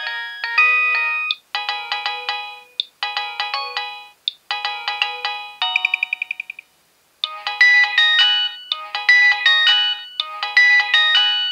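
Nokia 6820a mobile phone playing a polyphonic ringtone through its loudspeaker: short, bright melodic phrases with brief breaks between them. About halfway through comes a rapid trill of repeated notes, then a pause of about half a second before the tune starts again.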